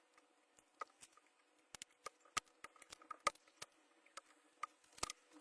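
Scattered light clicks and taps of hand tools and metal on a lithium-ion battery pack as a faulty, self-discharging cell is worked out of it, a few of the clicks sharper than the rest.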